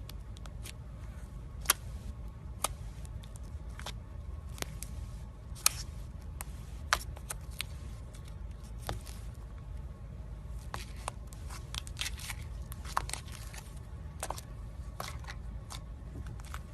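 Slime being squeezed and pressed by hand, giving irregular sharp crackles and pops, a few of them loud, over a steady low hum.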